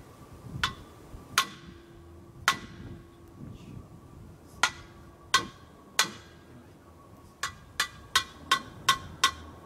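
Hammer tapping on metal: about a dozen sharp, ringing strikes, spaced irregularly at first, then about three a second near the end.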